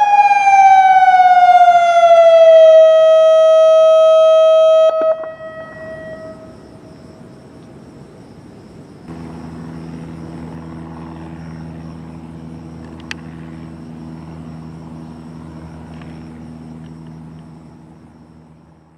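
Federal Signal Modulator 3012 electronic warning siren finishing its wail signal: the tone slides down in pitch, holds, then stops abruptly about five seconds in, its echo trailing off. A steady low hum follows from about nine seconds in.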